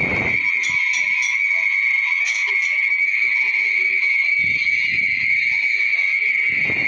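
A steady, high-pitched chorus of small calling animals, like a frog chorus, with a few low thumps about four seconds in and near the end.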